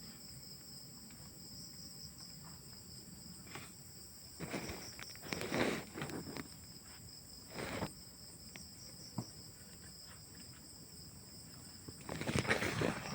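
A steady high-pitched drone of insects in chorus. A few short, louder scuffing or rustling noises come through it, about four to six seconds in, once near eight seconds, and again near the end.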